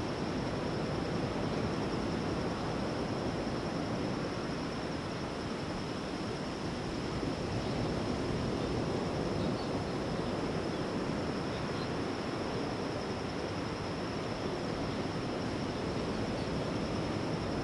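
Ocean surf washing on a beach: a continuous rushing noise that swells and eases gently.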